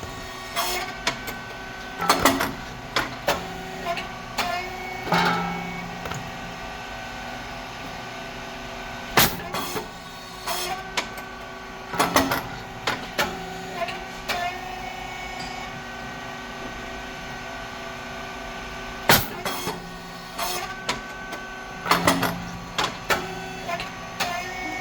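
SYP9502 rice cake popping machine running its production cycle. Its heated moulds give a loud, sharp pop about every ten seconds as the rice cakes puff, with two pops in all. Between the pops come clusters of clicks and knocks and short hisses as the mould and latch move, over a steady machine hum.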